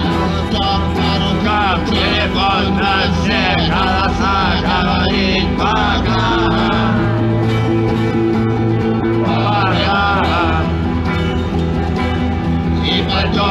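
A rock song performed live, with a singer over steady bass and guitar.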